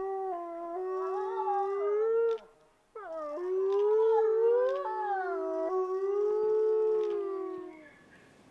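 Several timber wolves howling in chorus: long overlapping howls at different pitches, which break off briefly about two and a half seconds in, then start again and fade out near the end.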